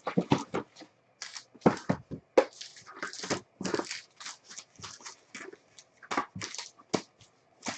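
Trading card boxes and packs being handled and opened: a rapid, irregular string of crinkling, rustling and scraping of wrappers and cardboard.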